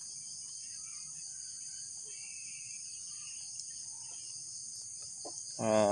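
Steady, high-pitched chorus of insects droning without a break. A man's voice begins near the end.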